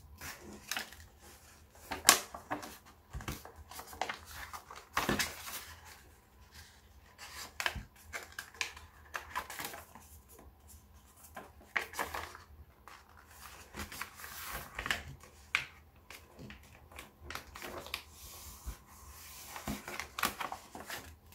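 A sheet of origami paper being folded and creased by hand: irregular rustling and crinkling with sharp crackles, the loudest about two seconds in, over a faint low hum.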